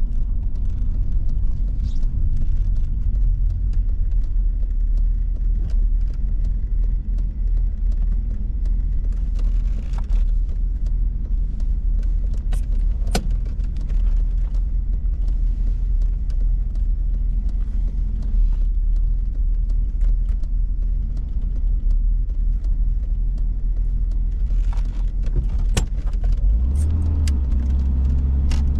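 Volvo 740 GL driving: a steady low engine and road rumble, with a few sharp clicks and small rattles now and then. The low drone grows stronger near the end.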